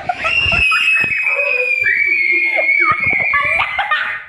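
A young girl's long, high-pitched scream, held for nearly four seconds and sliding slightly lower toward the end, with other people talking underneath.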